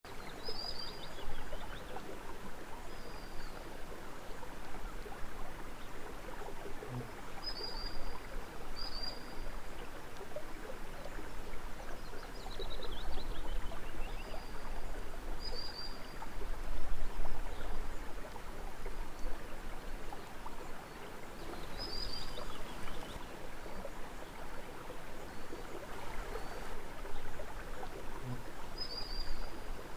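Running water flowing steadily, with birds singing over it: short high calls every few seconds and a couple of falling trills.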